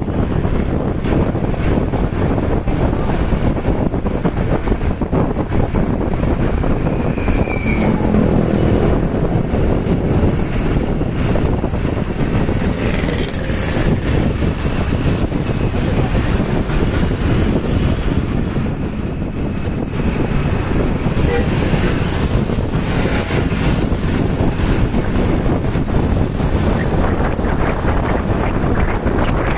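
Wind buffeting the microphone over a steady rumble of road and engine noise while moving at speed on the road.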